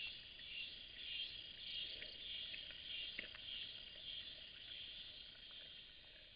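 A steady, high chorus of insects buzzing and trilling, with a few faint clicks mixed in.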